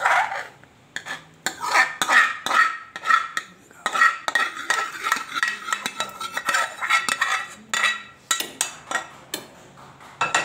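Steel ladle scraping and clinking against a steel pan and a steel bowl as dal is scooped and poured out, many short metallic knocks that ring briefly.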